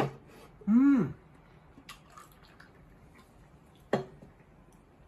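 A man's closed-mouth "mm" of enjoyment while eating, about a second in, its pitch rising and then falling. Light clicks of tableware, with a sharp click about four seconds in.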